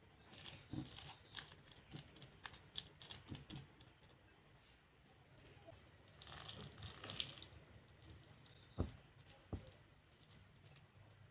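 Sliced onion and spiced flour being mixed and squeezed by hand in a glass bowl: faint crackling and rustling, with two light knocks about two-thirds of the way through.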